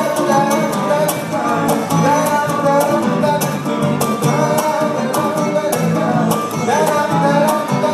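Live band music: guitars strummed in a steady rhythm under a gliding melody line, with a man singing.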